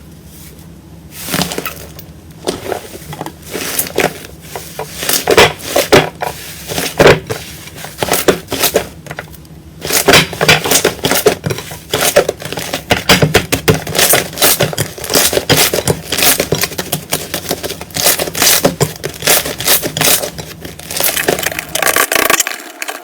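Slime being pressed and squeezed, crackling and crunching in dense irregular bursts. There is a short lull about nine seconds in, then a steadier run of crackles.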